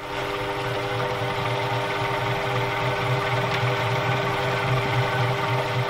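Electric honey extractor running: its top-mounted motor hums steadily as it spins frames of honeycomb in the stainless steel drum to fling out the honey.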